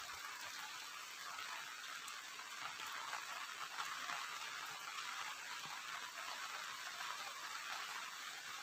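Steady rain falling, a faint even hiss.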